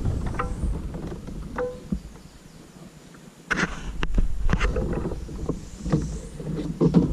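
Kayak paddling heard on a handheld microphone: a low wind rumble with scattered sharp knocks of the paddle and hull. The rumble drops away for about a second and a half midway, then returns with a burst of knocks.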